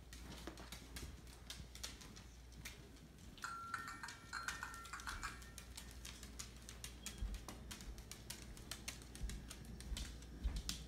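Chinese crested dog's toenails clicking irregularly on a hardwood floor as it walks and turns, with a faint steady tone for under two seconds about three and a half seconds in.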